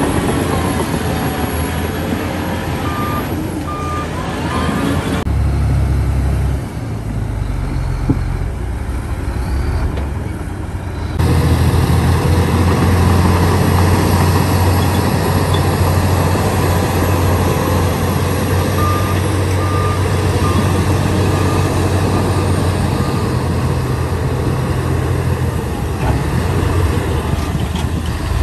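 Heavy diesel engines of a crawler bulldozer and a Shacman dump truck running under load, the truck's low engine rumble strongest from about a third of the way in as it reverses and tips soil. A reversing alarm beeps in two short runs of a few beeps.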